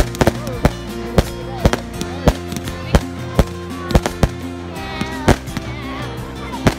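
Aerial fireworks exploding: irregular sharp bangs, roughly two a second, over music with sustained tones.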